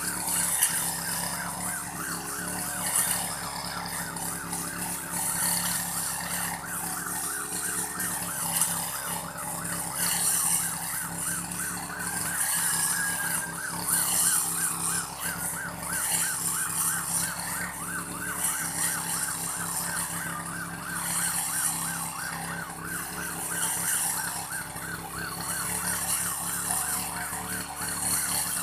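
Old brush cutter engine running at high revs while cutting grass, its high whine wavering rapidly and evenly up and down.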